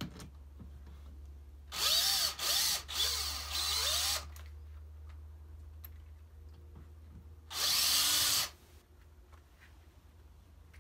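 DeWalt cordless drill/driver backing screws out of a plywood panel in short runs: four quick runs about two seconds in, then one longer run of about a second a few seconds later.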